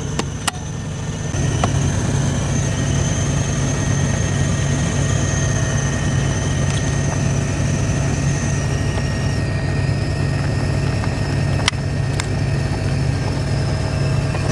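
Semi-truck engine idling, a steady low drone heard inside the cab, with a few light clicks.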